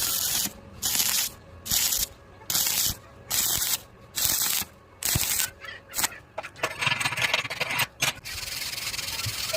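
Rhythmic hand rubbing or scraping strokes, about one a second, each a short hiss, running together into a more continuous rubbing after about six seconds.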